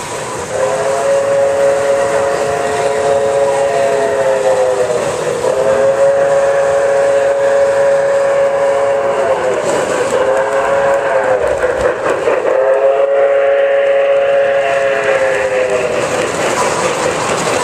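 O-gauge model train's electronic whistle blowing a chord in the grade-crossing pattern (long, long, short, long), over the running rumble and clatter of the model train's wheels on the track.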